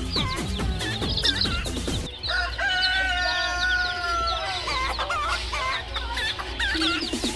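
Chickens clucking and calling over one another, with a rooster crowing once near the middle, one long call of about two seconds that falls slightly in pitch.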